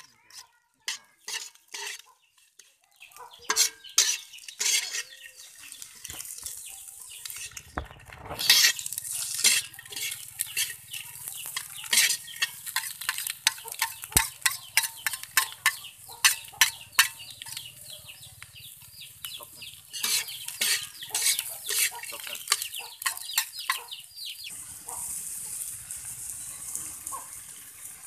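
A metal spatula scraping and clanking against a steel wok in quick, uneven strokes while egg and then rice are stir-fried, over a frying sizzle. The sizzle grows louder about a third of the way in. Near the end the strokes stop and a steady sizzle remains.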